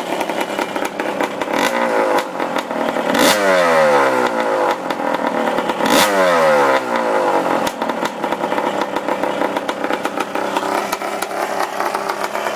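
Rebuilt Kawasaki KX250 two-stroke motocross engine running at its first start-up after restoration, fitted with an exhaust borrowed from a four-stroke 250F. It idles and has its throttle blipped twice, the revs falling back after each blip.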